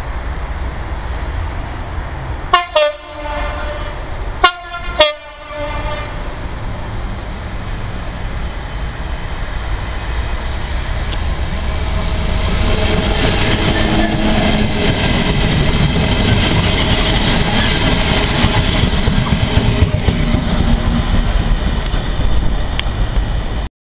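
Class 66 diesel freight locomotive sounding three short horn blasts, about 2.5, 4.5 and 5 seconds in, then its engine and wagons getting louder as the train approaches and passes. The sound cuts off abruptly just before the end.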